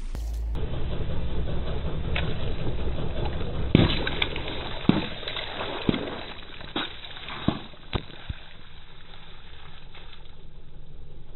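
Car tyre rolling over and bursting plastic bags of coloured liquid, the liquid sloshing and splattering onto asphalt, with several sharp cracks between about four and eight seconds in. It grows quieter near the end.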